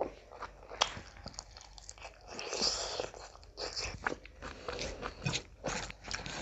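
A person chewing a mouthful of rice and curry close to the microphone, with many sharp crunchy clicks, while a hand mixes rice on a plate.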